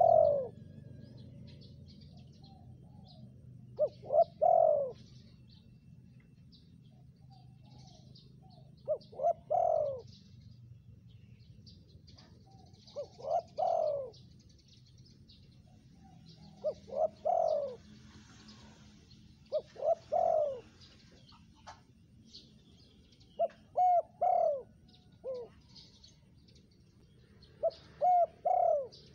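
Spotted dove cooing its phrase over and over, about every four seconds: a couple of short notes and then a longer coo falling in pitch. Small birds chirp faintly in the background.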